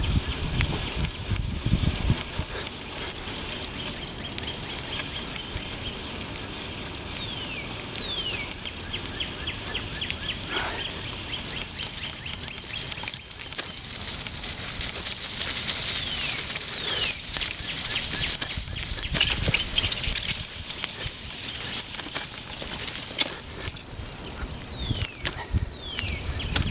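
Bicycle riding over wet pavement and grass, with rolling noise and wind on the microphone. Birds call now and then with short falling whistles.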